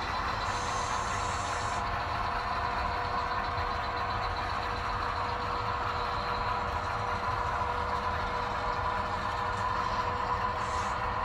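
Model coal train running across a model girder bridge: a steady rumble of wheels on the rails under a steady hum. Two brief faint high-pitched sounds come just after the start and near the end.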